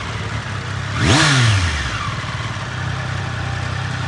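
Triumph Street Triple's inline three-cylinder engine on its stock exhaust, blipped once about a second in: the revs climb sharply and fall back, then it settles into a steady idle.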